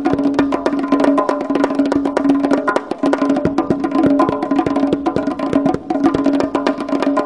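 Two tombaks (Persian goblet drums) played together in a fast, dense stream of finger strokes and rolls, the drumheads ringing steadily under the strokes. The playing gets suddenly louder right at the start.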